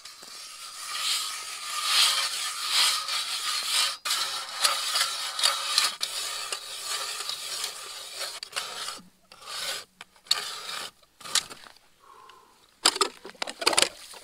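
Hand-cranked ice auger's steel blades rasping and scraping as they cut down through the lake ice, pulsing with each turn of the crank. About halfway through it breaks into shorter strokes with pauses. The blades are dull, so the cutting is slow and hard going.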